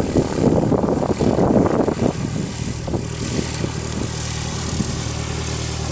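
Single-engine light aircraft's piston engine and propeller running as the plane rolls along a dirt airstrip after landing. Louder and gustier for the first two seconds as it passes close, then settling into a steady low drone as it moves away.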